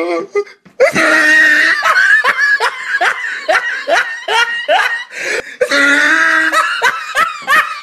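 Loud laughter in quick repeated bursts, about three a second, followed by a longer drawn-out laughing sound near the end.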